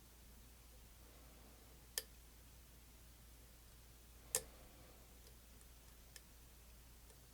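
Lock pick and tension wrench working the pins of an old Sargent padlock: two sharp metallic clicks about two and a half seconds apart, then a faint one, over near silence.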